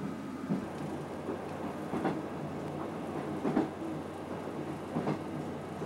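Express train running on jointed track: a steady rumble with a wheel clack over a rail joint about every second and a half.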